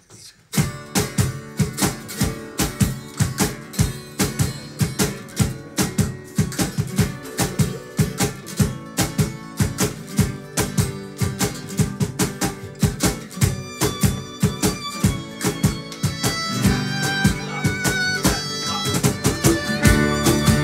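Acoustic folk ensemble starting a song: acoustic guitars strummed in a steady, driving rhythm with hand drums (cajon and djembe), violins in the mix. About sixteen seconds in more instruments join and the sound fills out and grows louder.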